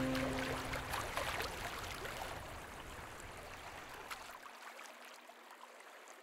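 Water lapping with small splashes and drips, fading out gradually. The last notes of a music track die away in the first second.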